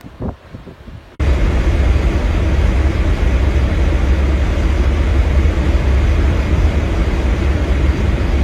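Strong wind buffeting the microphone in a snowstorm: a loud, steady rumbling rush that starts abruptly about a second in, after a moment of faint rustling.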